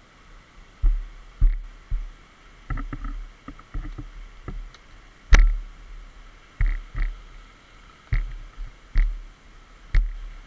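A dozen or so irregular low thuds and knocks, the loudest about five seconds in, over a faint steady hiss: the bike-mounted camera jolting as the dirt bike moves slowly over rough trail. No engine note is plainly heard.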